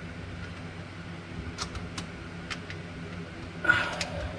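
A few faint, sharp clicks of screws and a screwdriver against the metal mounting ring of a garbage disposal being fitted under a sink, over a steady low hum, with a short breathy noise near the end.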